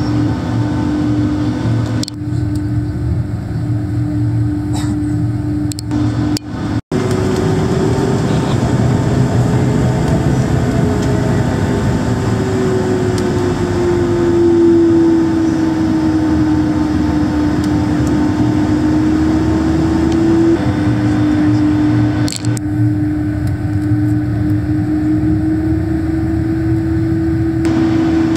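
Airliner noise heard inside the cabin: a steady low rumble with a constant whine that drifts in pitch partway through.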